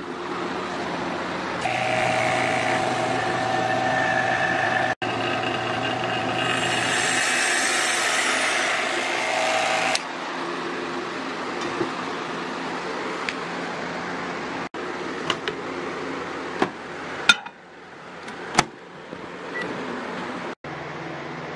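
Small electric vacuum pump running steadily, pulling down a vacuum chamber to degas a cup of liquid. A couple of sharp clicks come near the end, then a microwave oven hums.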